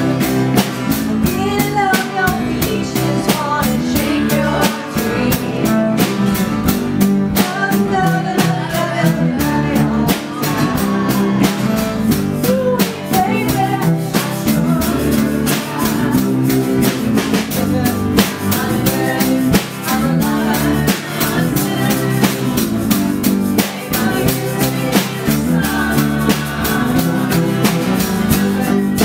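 Live band playing a song together: strummed acoustic guitars and a drum kit keeping a steady beat, with a woman singing over them.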